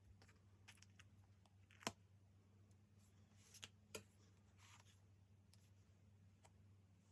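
Faint desk-crafting sounds: a few sharp little clicks and taps with a soft paper rustle, from stationery and paper being handled while decorating a diary.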